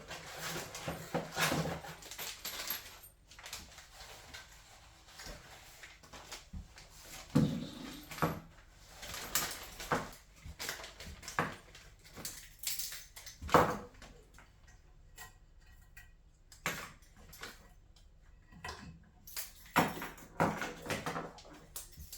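Irregular metallic clinks, clicks and knocks of hand work with tools on metal parts, with a few sharper strikes among them.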